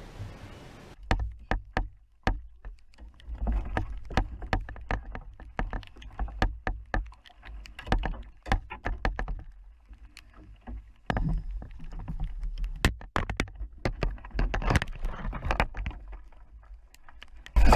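Irregular knocks and clatter over a low rumble.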